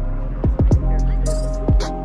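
Background music: an instrumental beat with deep kick drums, short high hi-hat ticks and held keyboard chords.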